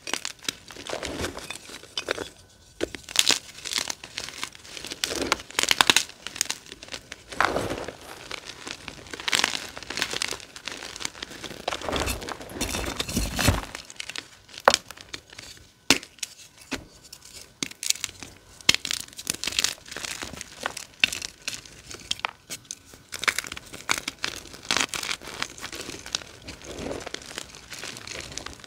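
Blocks of dyed gym chalk crushed and crumbled between bare hands: irregular dry crunches and crackles. A longer, deeper crunch comes about twelve seconds in.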